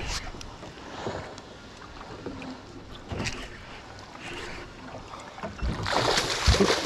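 Small boat rocking at sea, water slapping against the hull with scattered light knocks, and a louder rush of noise near the end.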